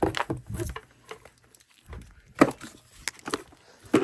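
Irregular knocks and clunks of an upright vacuum cleaner being handled and pushed upright: a quick run of knocks in the first second, then single knocks past the halfway point.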